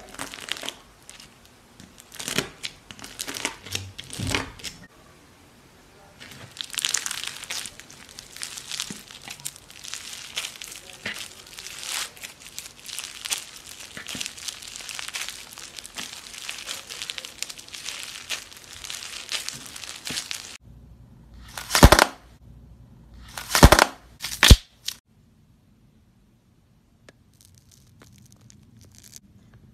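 Crunchy bead slime being sliced with a knife and then squeezed and pulled apart by hand, a dense crackling and crinkling of the packed beads. A little past the middle come three loud short crunches, after which it goes almost silent.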